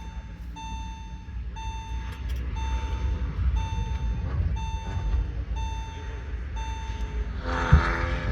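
Electronic warning beep repeating about once a second, each tone about half a second long, over a low rumble from the car; a short louder burst of noise comes near the end.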